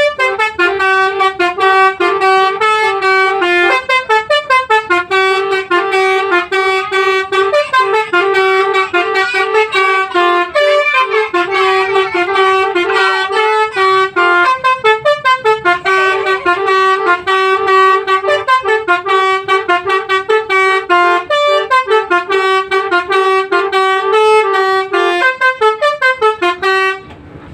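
Telolet Basuri V3 multi-tone bus horn playing a tune of fast, pulsing notes that shift in pitch. It stops abruptly near the end.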